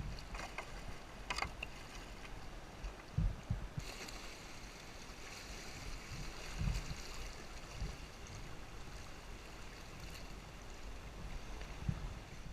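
River water rushing and gurgling around a kayak, with a few short splashes early on and occasional low bumps.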